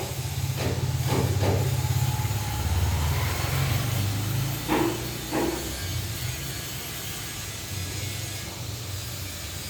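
Low, pulsing engine rumble of a nearby vehicle, loudest for the first few seconds and then fading, with two brief knocks about five seconds in.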